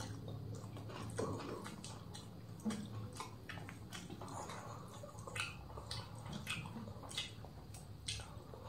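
Quiet eating sounds: chewing and small wet mouth clicks, with fingers mixing rice on banana leaves, as scattered short clicks throughout.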